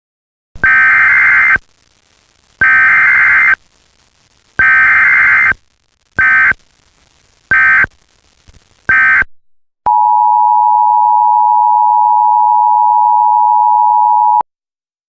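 Emergency Alert System data tones: three roughly one-second warbling SAME header bursts, then three short end-of-message bursts. About ten seconds in, the EAS two-tone attention signal sounds steadily for about four and a half seconds and cuts off abruptly.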